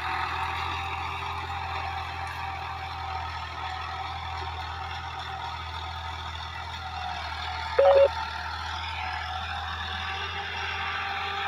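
Ford 3610 tractor's three-cylinder diesel engine running steadily under load, pulling an 11-tine cultivator through ploughed soil. A short, loud beep cuts in once, a little under eight seconds in.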